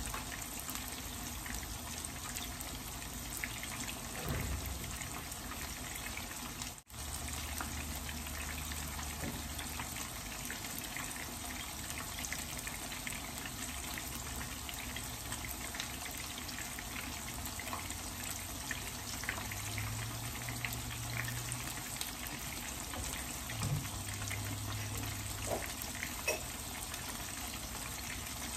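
Salmon pieces coated in fish sauce and tapioca starch sizzling steadily in a pan of frying oil over low heat, with small scattered crackles. The sound briefly cuts out about seven seconds in.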